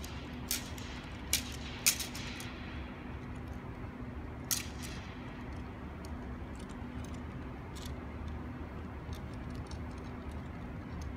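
Steady low hum of the air dome's blowers, with four sharp clicks and knocks in the first half and a few faint ticks later as a long wooden staff is handled.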